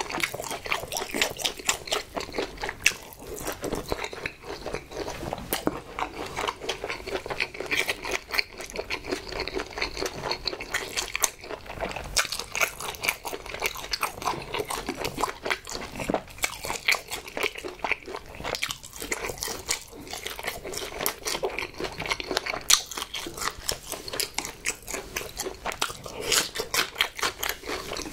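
Close-miked chewing of a mouthful of food: a steady, quick run of chewing clicks, several a second.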